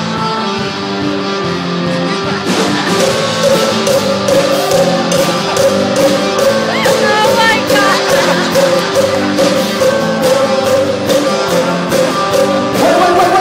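Live rock band playing: guitar chords, with drums joining about two and a half seconds in and a voice singing over them.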